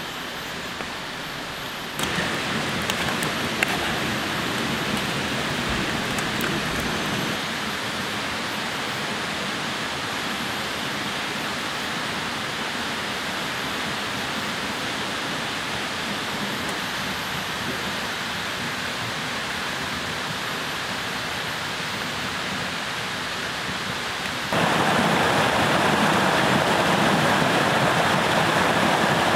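Steady hiss of rushing water with no distinct events. It steps louder about two seconds in and again near the end.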